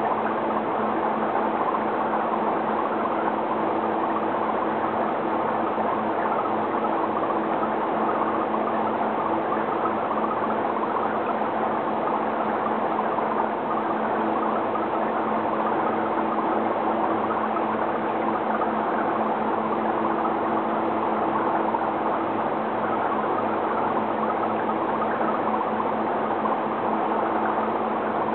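Aquarium aeration or filter running steadily: an even rush of bubbling water over a low, constant hum.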